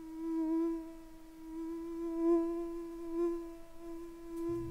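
A single sustained electronic drone note held on one pitch with faint overtones, swelling louder and softer three times.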